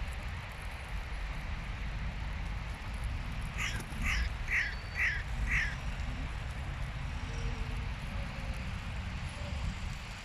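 Hooded crow cawing five times in quick succession, about two caws a second, over a steady low rumble of wind.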